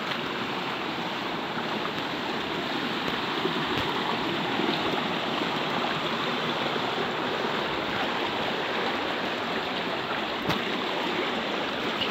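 Water of a shallow, rocky stream rushing steadily, with a faint click about ten and a half seconds in.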